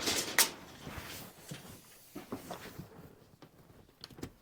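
Workshop handling sounds: a brief scraping rustle ending in a sharp click under half a second in, then scattered faint knocks and taps.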